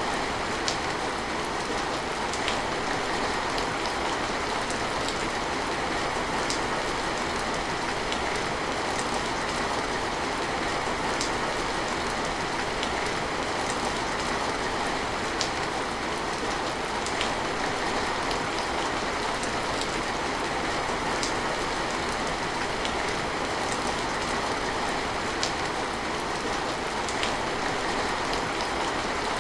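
Steady rain falling, an even hiss with single drops ticking sharply now and then.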